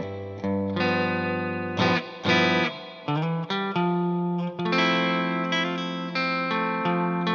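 Electric guitar played with a clean tone through a half-inch humbucker pickup wound with 38 AWG wire. Picked notes and chords ring out and fade, with fresh attacks several times over.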